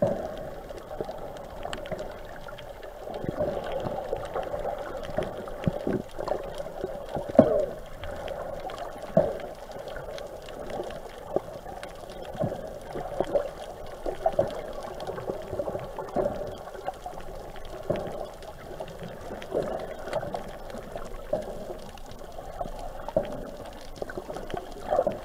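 Sea water heard through a camera held underwater: a muffled, steady sloshing and gurgling, with irregular soft knocks and swells as the swimmer moves.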